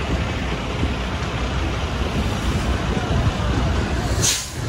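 Busy city-street traffic noise: a steady rumble of passing cars and buses, with a brief high hiss near the end.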